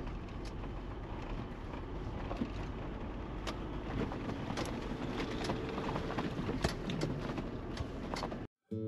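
Jeep driving slowly on a dirt track, heard from inside the cab: a steady low rumble of engine and tyres with scattered small clicks and rattles. It cuts off abruptly near the end and acoustic guitar music begins.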